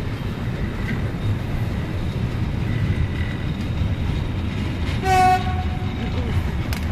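Container freight wagons rolling past with a steady low rumble and wheel clatter. About five seconds in, a locomotive horn sounds one short, loud blast.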